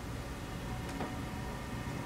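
Room tone: a steady low hum with a faint hiss, and a single faint click about a second in.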